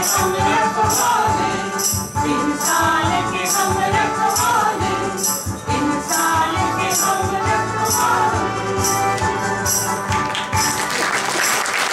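A small group of voices singing together over electronic keyboard accompaniment with a jingling beat about twice a second. The song ends about ten seconds in and applause begins.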